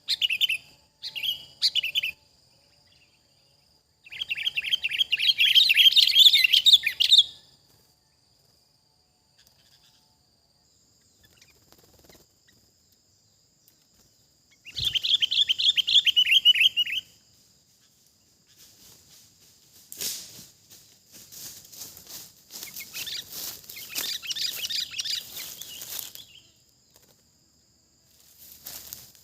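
Sooty-headed bulbuls calling in bursts of rapid chattering notes, two loud bouts followed by softer scattered chirps, over a thin steady high whine.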